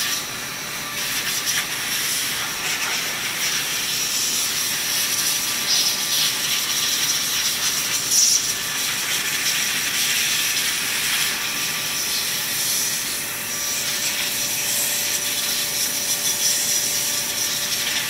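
Opolar handheld electric air duster (a 33,000 RPM battery blower) running continuously, a steady high whine over a loud rush of air as it blows dust out of a graphics card's cooler. The level dips and swells slightly as the nozzle moves, with a brief louder peak about eight seconds in.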